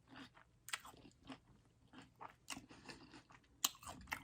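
A person chewing crunchy food: irregular crisp crunches and bites, the loudest a little before the end.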